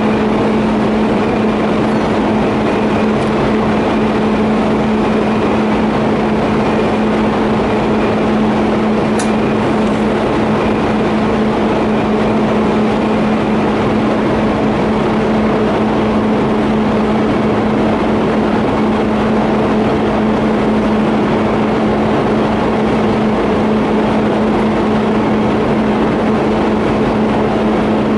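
TIG welding on a pipe flange and elbow: a steady, unbroken hum with a hiss over it and a couple of faint ticks.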